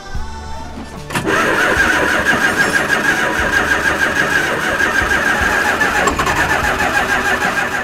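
Ford E-350 school bus engine cranking and starting, then running loudly with a rapid pulsing beat; it starts about a second in and cuts off at the end.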